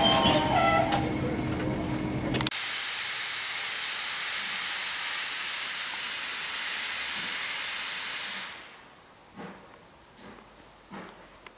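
Railway coaches rolling past with a squeal from the wheels. Then, after a cut, a steam locomotive's steady hiss of escaping steam, which fades out about eight and a half seconds in.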